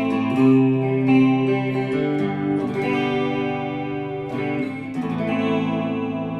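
Electric guitar with P90 pickups playing chords through a chorus pedal, giving a shimmering, wavering tone. Several chords are strummed and left to sustain, and the last one, struck about five seconds in, rings on.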